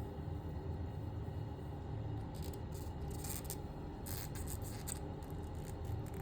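Faint scraping and light clicks of small plastic parts being handled as weapon accessories are fitted into a 1/6 scale action figure's hands, clustered in the middle few seconds, over a steady low background hum.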